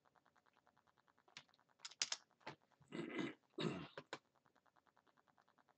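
Computer keyboard keystrokes and mouse clicks while a part name is typed in and applied: a handful of sharp taps from about a second and a half in, with two longer, louder clatters around three to four seconds in. A faint, fast, even ticking buzz runs underneath.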